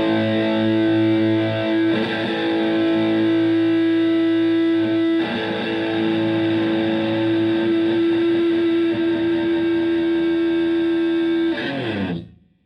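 Stratocaster electric guitar played through a Tone Bender MKI germanium fuzz pedal and a Twin Reverb–style tube amp: distorted notes struck about two and five seconds in and held with long sustain, then cut off near the end.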